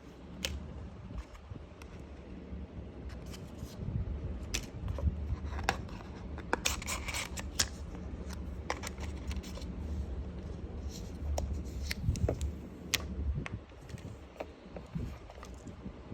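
Hands handling a phone box and its packaging: scattered clicks, taps and scrapes, with a denser scratchy rustle about seven seconds in, over a steady low rumble.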